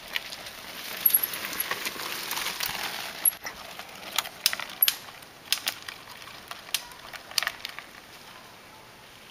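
Mountain bike passing on a dirt trail, its tyres rolling over the dirt and gravel with a rising rush, then a run of sharp irregular clicks and clacks as it rides over the new cedar plank bridge and away, dying out near the end.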